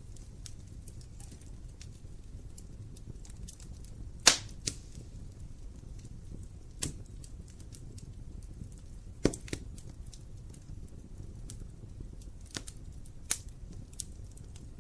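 Wood fire burning in a fireplace: sharp crackles and pops over a low steady rumble of the flames, two loud pops standing out about four and nine seconds in.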